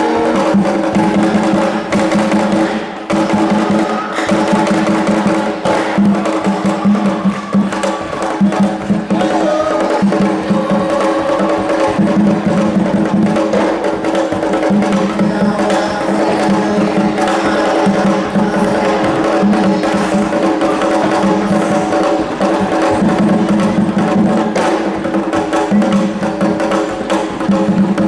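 Music led by drums and percussion: quick, sharp strikes over a few steady held tones.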